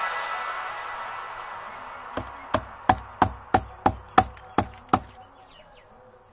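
A fading wash of sound dies away, then a run of about nine sharp, evenly spaced clicks or taps, about three a second, stops abruptly.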